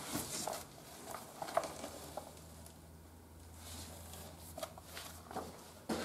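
Faint rustling and handling of paper and cardboard as an operator's manual and papers are pulled out of a cardboard box, with a few soft taps, over a low steady hum.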